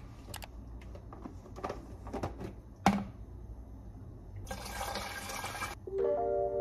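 A few faint clicks over a low background, then about a second of rushing, water-like noise that starts and stops abruptly. Near the end a tune of clear, stepped notes begins.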